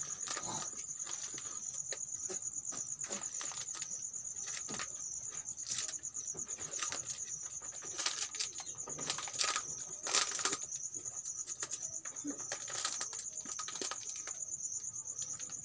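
Crickets chirping in a steady high trill, with frequent crackling rustles of a rose bouquet's paper and plastic wrapping being handled.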